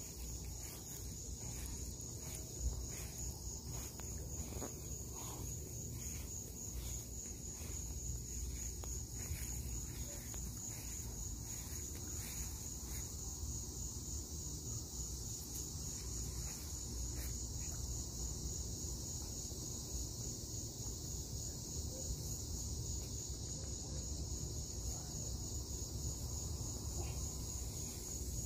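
Insects trilling in a steady, high-pitched chorus that pulses rapidly, over a low rumble.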